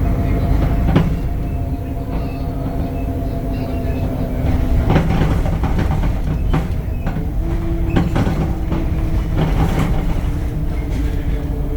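Inside a Temsa Avenue LF 12 city bus on the move: the DAF diesel engine and ZF automatic gearbox run under a heavy low rumble, with a steady whine whose pitch drops at about seven and a half seconds in. Sharp knocks and rattles come through several times.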